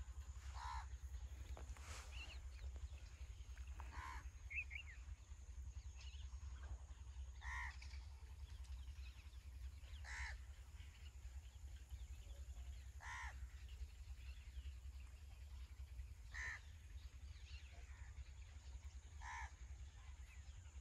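A crow cawing faintly, about seven single short caws spaced roughly three seconds apart, over a steady low rumble.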